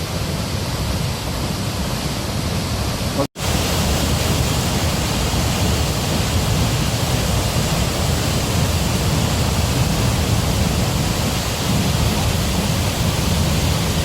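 Steady rushing roar of a waterfall. It cuts out for an instant about three seconds in, then goes on slightly louder.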